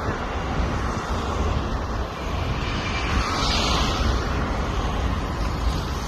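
Wind buffeting the phone's microphone on the open top deck of a moving sightseeing bus, over a steady low rumble of the bus engine and road noise. A hiss swells briefly around the middle.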